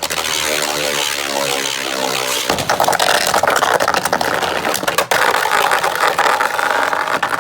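Two Beyblade spinning tops in a plastic stadium just after launch: a steady whirring whine, then from about two and a half seconds in a louder grinding rattle with sharp clacks as the tops clash.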